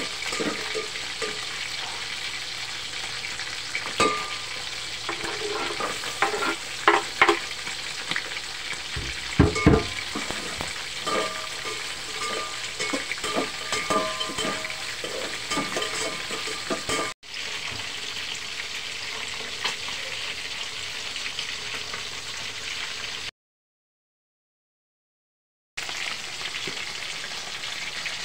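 Two whole fish sizzling steadily in hot oil in a wok, with the clinks and scrapes of a metal spoon stirring in an aluminium pot through the first half. A little over three-quarters through, the sound drops out entirely for a couple of seconds, then the sizzling returns.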